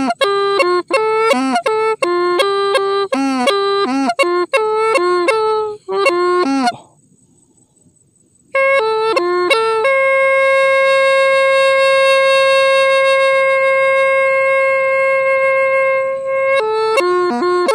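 A Hmong raj le les bamboo pipe playing a melody of short notes that bend down at their ends. After a short pause it holds one long steady note for about six seconds, then goes back to short notes near the end.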